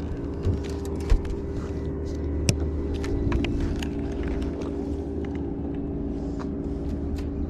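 A boat motor running steadily with an even, pitched hum and low rumble, with a few sharp knocks, the loudest about a second in.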